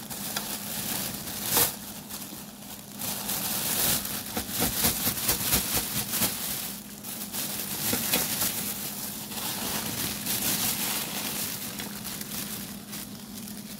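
Thin plastic bag crinkling as a pile of fresh green pea pods is shaken out of it and tumbles onto a plate, with a sharper tap about a second and a half in.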